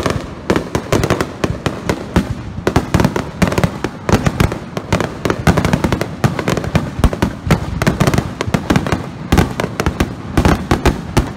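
Fireworks display: a rapid barrage of aerial shells bursting one after another, many bangs a second with barely a pause.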